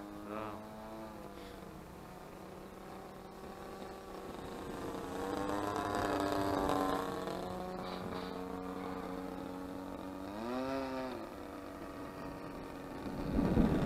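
DLE 20cc single-cylinder two-stroke petrol engine of a radio-controlled Sbach 342 aerobatic plane in flight, running on a replacement chainsaw carburettor. Its steady drone grows louder through the middle as the plane comes nearer, and near the end its pitch briefly rises and falls.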